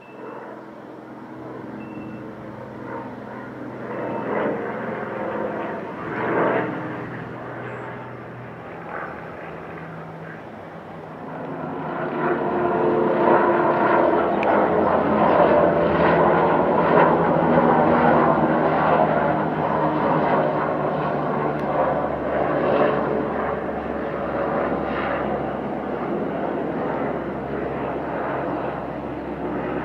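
A single-engine piston warbird flying over, its propeller engine droning steadily. About eleven seconds in, a helicopter passing overhead takes over, louder, with rotor and engine noise.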